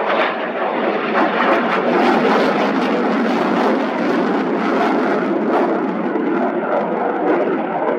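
Eurofighter Typhoon's twin Eurojet EJ200 jet engines running loud and steady as the fighter flies away, with a crackling edge throughout.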